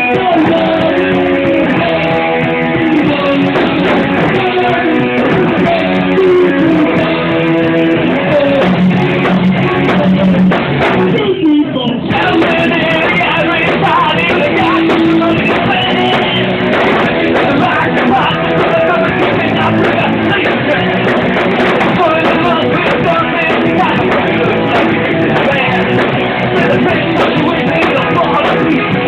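Punk rock band playing live and loud: electric guitar, drum kit and a singer at the microphone, with a brief drop in the music about eleven seconds in.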